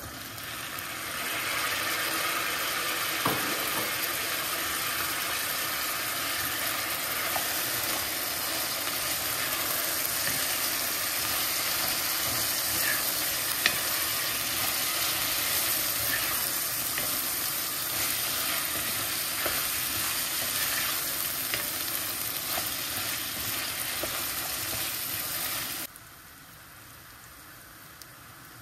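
Diced celery root sizzling as it fries in olive oil with onion and carrot, stirred with a wooden spoon, with a few sharp clicks of the spoon against the pot. The sizzle cuts off suddenly near the end.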